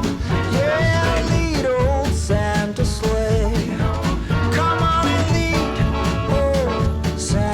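Background music: an upbeat swing-style Christmas song with a steady bass and drum beat and a gliding lead melody.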